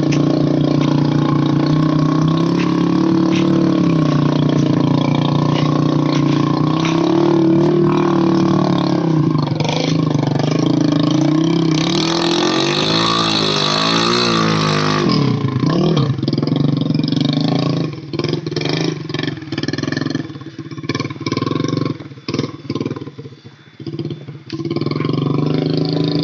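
Motorcycle loaded with timber logs, its engine labouring and revving up and down under heavy load. About three-quarters of the way through the revving turns choppy, with the throttle cutting in and out.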